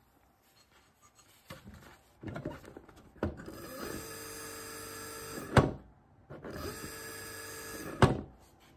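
Brushless servo sewing-machine motor run up twice on its speed lever, a steady whine of several tones. Each run cuts off with a sharp clack, about halfway through and again near the end.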